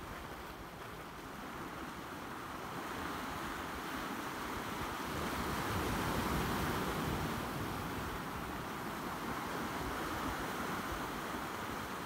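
Sea waves washing in and breaking over shoreline rocks, a continuous rushing surf that swells to its loudest about halfway through as a wave breaks into white foam.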